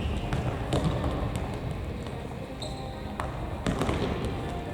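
Futsal ball being kicked and bouncing on a gymnasium floor, a scatter of sharp thuds a second or so apart, with a brief shoe squeak in the middle.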